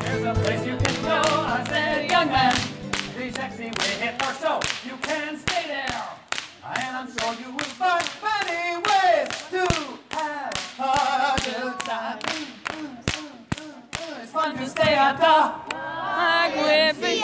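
A bullwhip cracked again and again in a steady rhythm, about three sharp cracks a second, in time with recorded vocal music.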